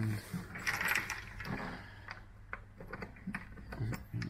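Scattered light clicks and plastic scraping from a headlamp lens and housing being handled while a retaining clip is pushed onto the edge to hold the two halves together.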